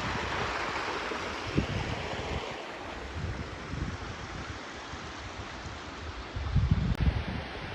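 Rushing water of a waterfall and fast-flowing mountain stream, a steady hiss. Wind gusts rumble on the microphone, most strongly near the end.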